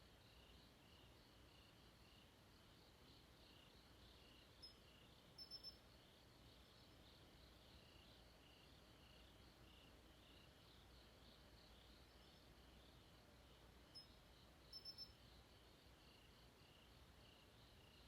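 Faint, steady chorus of crickets chirping in pulses. Twice, about ten seconds apart, a louder, sharper call cuts in: a single short note followed by three quick ones.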